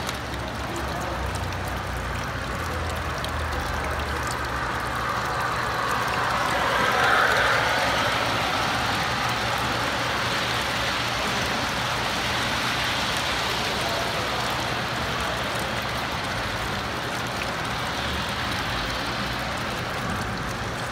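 Model train running along its track: a steady rumble of wheels on rail that swells about seven seconds in. Background noise of a busy hall lies underneath.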